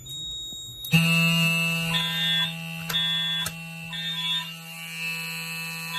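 Fire alarm sounding, starting about a second in: a steady buzzing tone under a high beep in the temporal-three evacuation pattern, three half-second beeps and then a pause.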